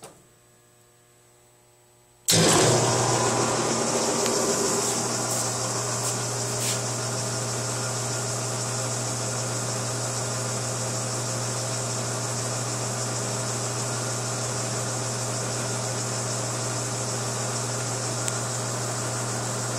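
Vulcan TM-60 dough mixer's electric motor and gear drive switched on about two seconds in, starting with a jolt, louder for a moment, then running steadily with a low hum.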